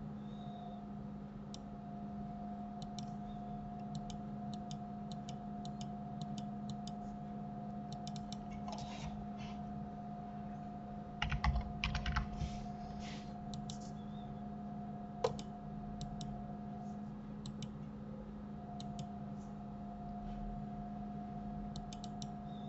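Computer keyboard typing: scattered single key taps, with a quick run of louder keystrokes about eleven seconds in, over a steady low electrical hum.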